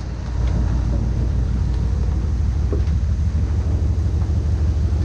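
Fishing boat's engine running steadily: a low, even drone with a fast fine pulsing to it.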